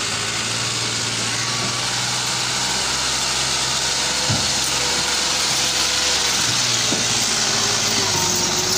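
Massey Ferguson 260 tractor's diesel engine running steadily and hard, pulling a heavily loaded trolley through mud so that its front wheels lift off the ground.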